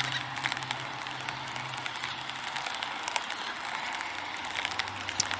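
Outdoor city ambience: a steady hiss of distant road traffic with a low engine hum that drops in pitch partway through, and many scattered small clicks.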